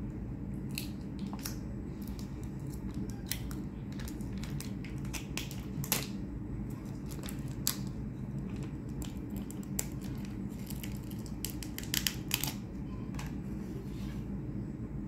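Plastic food packaging being handled: a cocktail-sauce cup unwrapped and set into the shrimp tray, giving scattered clicks and crackles over a steady low hum. The sharpest clicks come about six, eight and twelve seconds in.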